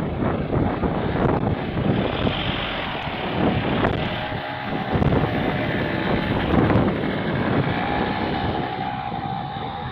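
A vehicle passing close by, loud and rumbling with irregular knocks, with wind buffeting the microphone. A steady whine comes in near the end.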